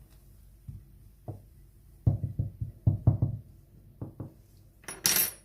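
Spoon knocking against a cooking pot as barley grits are stirred: a string of irregular dull knocks, thickest in the middle, ending with a brief harsh rasp about five seconds in.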